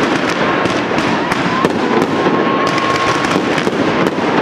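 Dense barrage of aerial fireworks: a continuous crackle with frequent sharp bangs. A steady whistle holds for about a second and a half in the middle.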